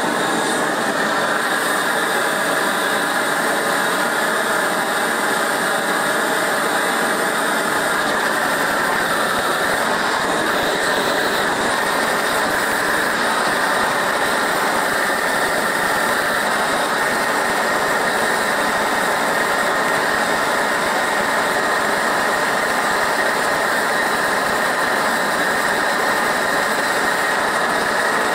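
Large gas blowtorch burning at full flame, a steady rushing noise, as it heats a copper model boiler for silver soldering. A deeper rumble joins in about eight seconds in.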